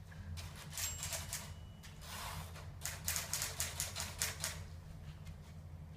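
Typewriter keys being struck in uneven runs of quick keystrokes with short pauses between them.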